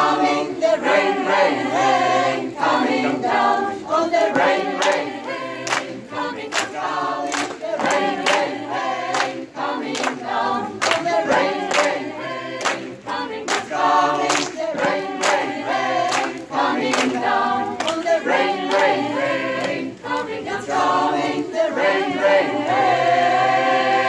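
A mixed amateur choir singing a cappella, with sharp hand percussion from the singers at about two beats a second. Near the end the choir settles onto a long held chord.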